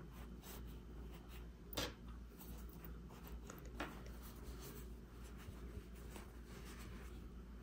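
Faint rustling and rubbing of hands working fibre stuffing into a crocheted amigurumi head. There is a sharper click about two seconds in and a smaller one near four seconds.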